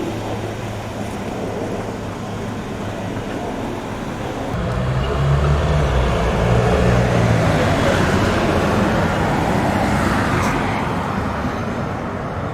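Street traffic noise. A louder motor vehicle with a low engine note passes from about four to ten seconds in.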